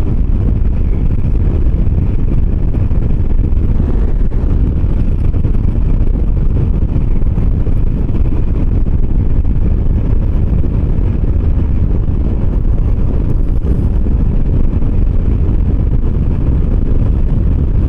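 Steady wind rush and low rumble on the microphone of a camera riding on a moving 125 cc motor scooter, with the road and engine noise of the ride under it.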